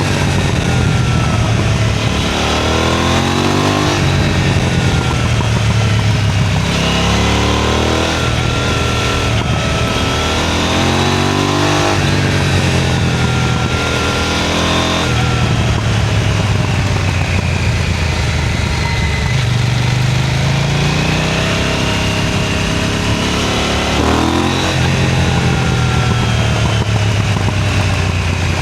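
KTM Duke 990 motorcycle engine and exhaust under way, pulling hard. Its pitch climbs sharply several times and drops back in between, as it accelerates and changes gear.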